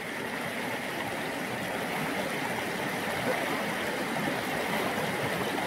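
River water rushing steadily, growing slightly louder over the few seconds.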